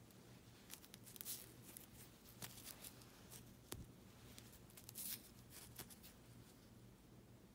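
Faint rustling and crinkling as fingers handle a cotton-cashmere knit beanie and its satin care label, in several short bursts with one sharp tick near the middle, over a low steady hum.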